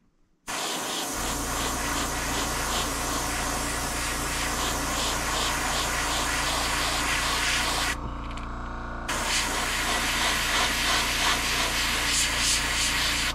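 Airbrush spraying paint onto a crankbait lure: a steady hiss of air and paint that stops for about a second past the middle, then starts again. A steady low hum runs beneath it.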